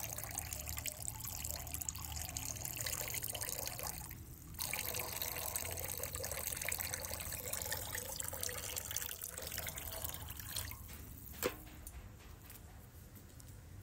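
Water trickling steadily, with a brief drop about four seconds in and a sharp click about eleven and a half seconds in, after which the trickle is quieter.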